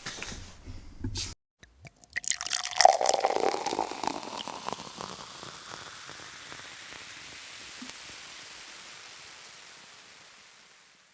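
Water rushing and splashing, loudest about three seconds in, then slowly fading away.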